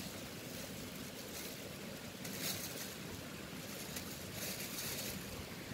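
Faint, steady outdoor background hiss beside a small river, with a couple of soft brief rustles about two and a half and four and a half seconds in.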